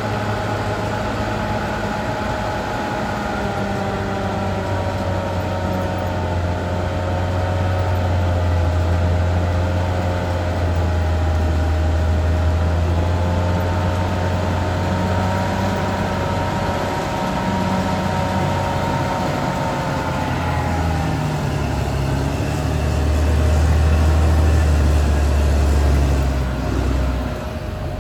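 Caterpillar D6R XL bulldozer's diesel engine running at work with a steady low drone and a higher whine that slowly wavers in pitch. The engine grows louder for a few seconds near the end, then dips briefly.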